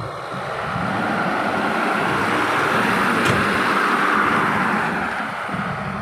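Loaded Ashok Leyland diesel truck driving past close by on a dirt track, its engine and tyres growing louder to a peak about halfway through, then fading as it moves away. A single sharp click about three seconds in.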